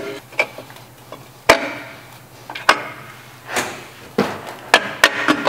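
Irregular metal clicks and clunks, about eight sharp strikes, the loudest about a second and a half in, some ringing briefly: the low/reverse backing plate being set down into a 700R4 transmission case by hand.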